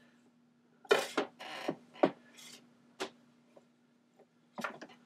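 Handling noises at a record player: rubbing and scraping, with several sharp clicks spread through, over a faint steady hum.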